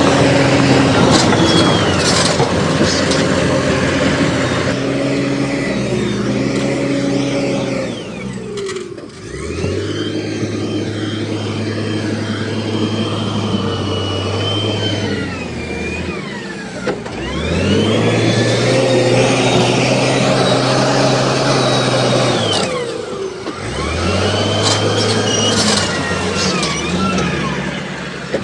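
Heavy diesel engine of an earthmoving machine working, revving up, holding and dropping back again several times, its pitch rising and falling with each cycle. A few sharp knocks come near the start and near the end.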